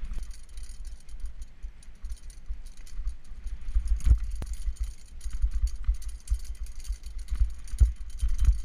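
Mountain bike rattling over a bumpy dirt trail at speed, with wind rumbling on the handlebar microphone and a couple of sharp knocks about four seconds in.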